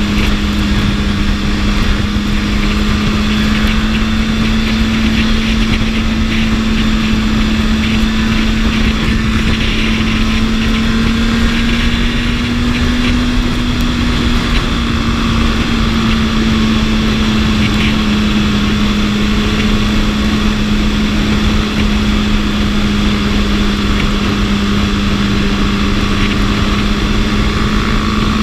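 BMW S1000RR inline-four engine running at a steady cruise, its pitch rising slightly about halfway through and easing back, under a constant rush of wind noise.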